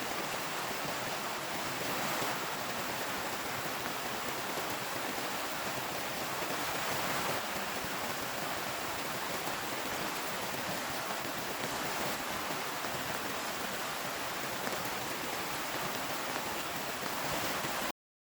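Heavy rain falling as a steady, even hiss. It cuts off suddenly near the end.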